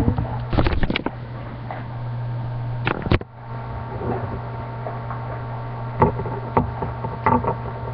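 Handling knocks and bumps as a webcam is moved and glass nail polish bottles are handled on a tabletop: a cluster in the first second, a sharp pair about three seconds in, and several single knocks near the end, over a steady low hum.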